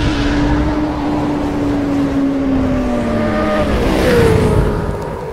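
Motorcycle engine sound effect. The note sags slowly in pitch, then sweeps sharply higher about four seconds in, with a loud rushing swell.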